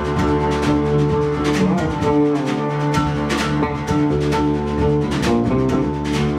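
Live band playing: electric bass and drum kit, with frequent cymbal strikes over long held notes.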